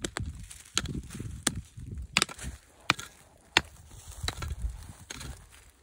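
Hand hoe chopping into very hard, dry soil. About eight sharp strikes come at an even pace, a little faster than one a second, each with a dull thud of earth.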